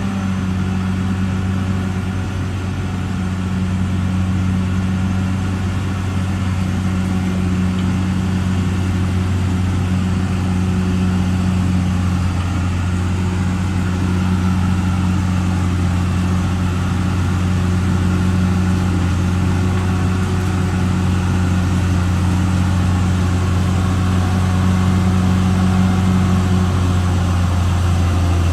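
Caterpillar D6R XL bulldozer's diesel engine running at a steady speed, an even low drone with little change in pitch.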